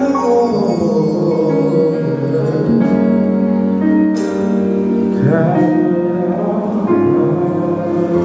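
Live gospel music: a male lead singer singing into a microphone over band accompaniment, with long held notes and a wavering vocal run about five seconds in.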